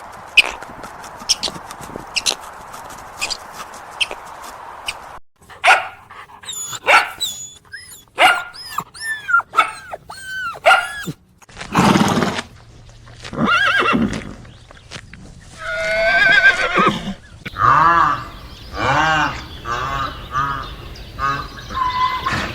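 Horse whinnying several times in the second half, loud wavering calls. Before them come a run of sharp clicks and then short, hooked calls.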